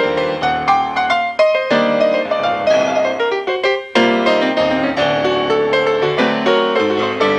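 Solo grand piano playing chords and a melody, with many note strikes ringing on. There are short breaks between phrases about a second and a half in and just before four seconds in.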